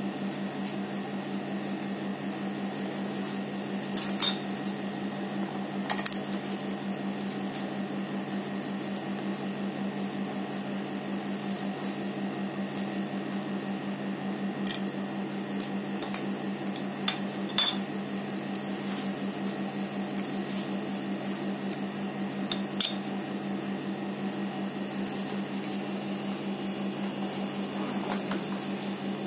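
A steady low hum, with a handful of sharp clicks scattered through it as small hard objects (a steel test disc, the gauge's probe, a plastic foil) are set down or tapped on a glass tabletop.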